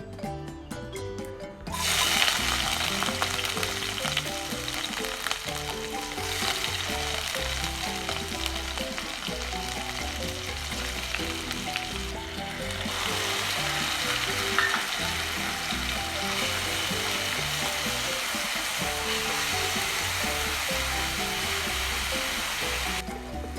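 Food sizzling as it fries in hot oil in a pan, starting suddenly about two seconds in, easing briefly around the middle and cutting off near the end.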